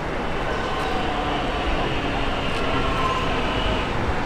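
Metro X'trapolis electric multiple unit running into the platform: a steady rumble of wheels on rail with a thin whine over it.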